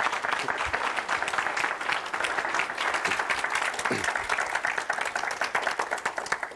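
Audience applauding: dense, steady clapping from many hands, dying away at the end.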